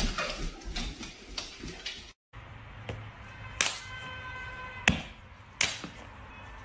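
A hand slapping the top of a padded leather ottoman three times, with sharp slaps about halfway in, a second later and just after. Held chiming tones ring on behind the slaps.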